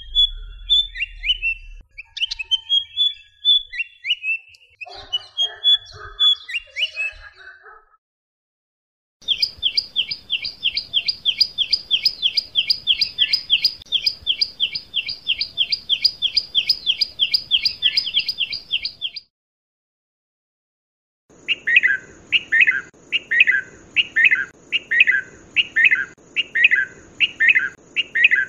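Recordings of three different backyard birds, one after another with short silences between them. First come varied chirps and calls. Then a long series of rapid repeated notes, about three or four a second, and finally loud downward-sweeping calls, roughly one or two a second, over a steady high whine.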